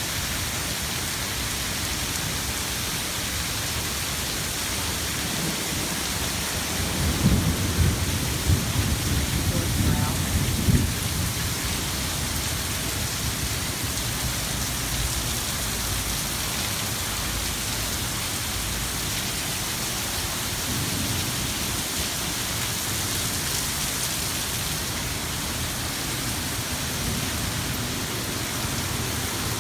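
Heavy rain pouring steadily, with a few seconds of louder low rumbling starting about seven seconds in.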